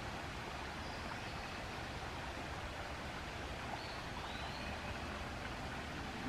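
Steady rushing hiss of a flowing stream, with a couple of faint, short high bird notes about four seconds in.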